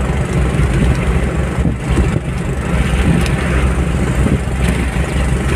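Steady rumble of road and engine noise inside a car driving at highway speed.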